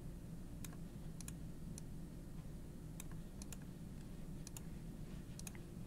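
Scattered light clicks from computer mouse and keyboard input, about a dozen spread irregularly over a few seconds, over a steady low background hum.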